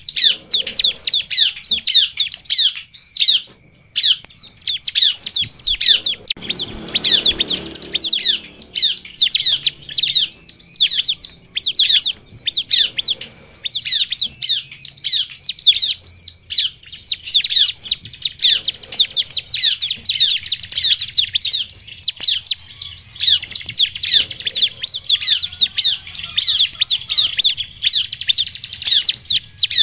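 Bar-winged prinia (ciblek) singing hard, a fast run of sharp, high, falling chirps, several a second, broken only by a few short pauses.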